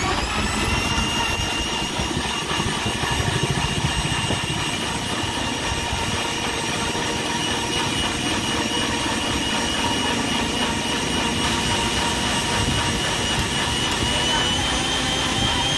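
Sujata mixer grinder's motor running at full speed, blending a banana and milk shake in its jar. A steady high whine that spins up at the start, then holds.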